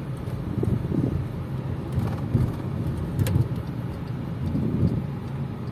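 Low road and drivetrain rumble inside the cabin of a Volkswagen Touran 1.6 DSG on the move, with a few soft knocks and swells from the suspension over the road surface.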